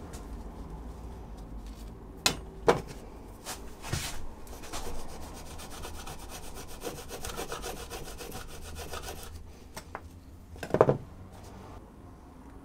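Knife blade sawing through black nylon webbing strap against a wooden board, a rapid, even rasping cut lasting several seconds. Sharp clicks and knocks come before the cut and a loud cluster of clicks near the end.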